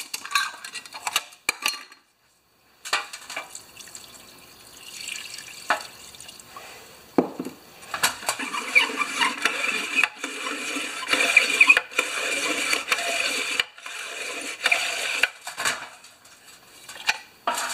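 A lawnmower's plastic recoil starter being handled and then sloshed and scrubbed by hand in a shallow metal pan of cleaning liquid: a few clicks and knocks against the pan at first, then splashing that grows busier about halfway through.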